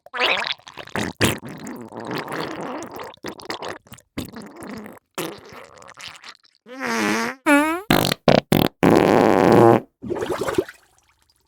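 A run of wet, sputtering fart and diarrhoea sounds. The first half is long, spluttering passages broken by sharp cracks. Two pitched, wavering toots come about seven seconds in, then a string of short pops and a loud blast with a sputtering tail that stops shortly before the end.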